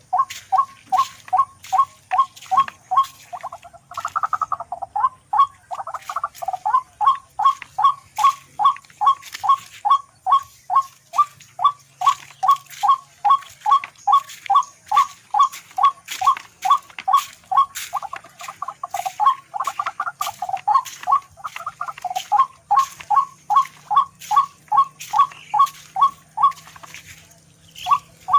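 Tikling (a rail) calling: a long run of short, harsh notes repeated about two or three times a second, pausing briefly near the end.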